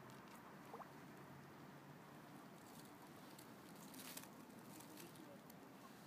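Near silence: faint outdoor background hiss with a few soft ticks and rustles, the clearest a short click cluster about four seconds in.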